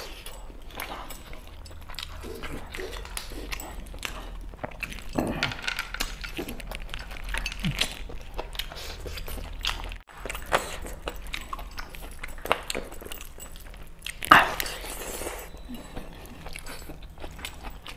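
Close-up eating sounds of a man eating meat curry with his hands: wet chewing, lip-smacking and finger-sucking, with one louder noisy burst about fourteen seconds in.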